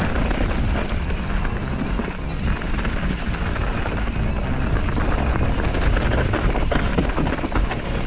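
Wind buffeting the microphone and mountain bike tyres rattling over a rough dirt trail on a fast downhill run, with sharper clatters near the end.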